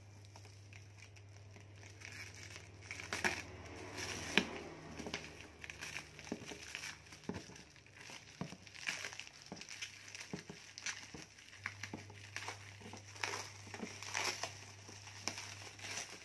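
Clear plastic stretch wrap crinkling and crackling as it is cut with scissors and pulled off a cardboard box, in irregular sharp crackles and rustles.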